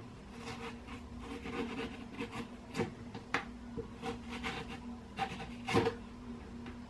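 A knife slicing and scraping through watermelon rind on a cutting board, trimming off the red flesh in a string of short, uneven strokes, the loudest near the end.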